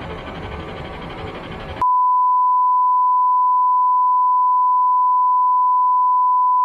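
The last moments of film credits music, then, about two seconds in, a steady pure test tone begins abruptly: the reference tone that plays with television color bars.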